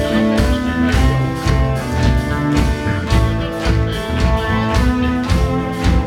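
Folk-rock band playing live: electric guitars and violin over a steady drumbeat, an instrumental passage with no singing.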